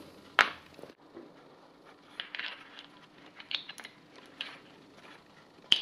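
Small steel brake adjuster parts being handled and picked up off a paper towel. There is a sharp click about half a second in, then scattered light taps, clinks and paper rustles, and another click near the end.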